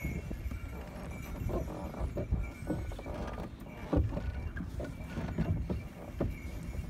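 Horse-drawn sleigh on the move over snow: irregular hoof thuds and knocks of the sleigh over a steady low rumble.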